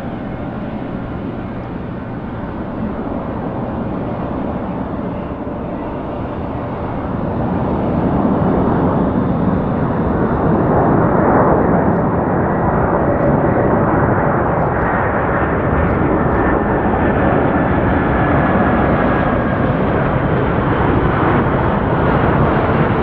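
Jet roar of a Boeing 747-400's four turbofan engines on landing approach, with a faint high whine. It grows louder about eight seconds in as the airliner comes closer, then holds steady.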